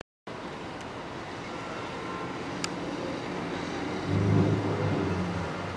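Traffic noise in a jammed city street. About four seconds in, a louder low drone lasts for about a second and a half, then fades back into the traffic.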